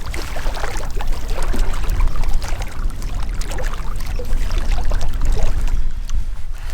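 Lake water splashing and sloshing in short, irregular bursts, over a steady low rumble of wind buffeting the microphone.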